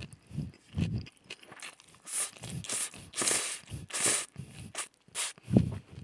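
Noodle slurping: a run of short, hissy slurps of Paldo bibimmyeon cold spicy noodles, the longest about midway, with a few lower mouth noises before and after. It is picked up close on a headset boom microphone.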